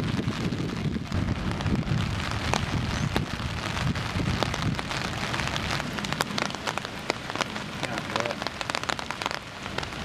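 Rain falling steadily, with many sharp raindrop ticks close by.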